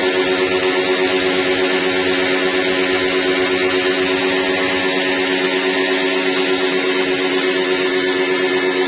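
Portable electric pressure pump running steadily while washing the air conditioner's indoor unit: a loud, even motor hum with a steady hiss over it.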